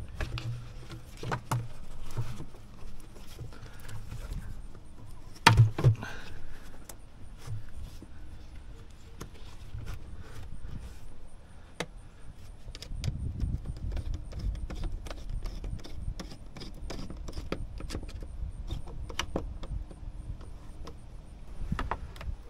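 Irregular clicks, clinks and knocks of hand tools and engine parts being handled during reassembly, with one louder knock about five and a half seconds in.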